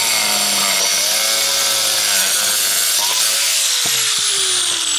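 Handheld DeWalt angle grinder cutting thin natural stone veneer: a loud, steady grinding whine. A little past three seconds in, the whine starts to fall in pitch as the disc spins down, and a couple of sharp knocks come around four seconds in.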